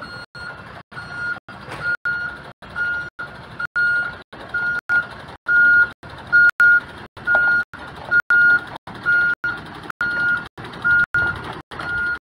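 Lorry's reversing alarm beeping, one high tone about twice a second, over the low running of its diesel engine. The sound is broken by many brief dropouts.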